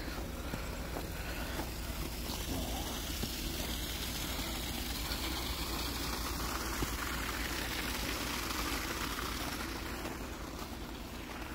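Road noise from a vehicle passing on a wet road: tyre hiss that swells through the middle and fades near the end, over a steady low rumble.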